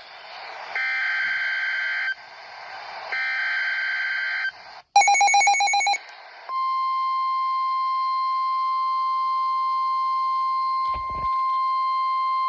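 Emergency Alert System / NOAA Weather Radio alert opening for a severe thunderstorm warning: two short bursts of screechy SAME digital header data, then a brief loud pulsing beep about five seconds in. From about six and a half seconds a steady, single-pitch warning alarm tone sounds, with a short low thump near the end.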